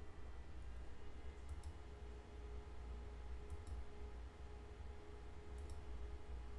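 Three faint computer mouse clicks about two seconds apart, each a quick pair of ticks, over a low steady hum.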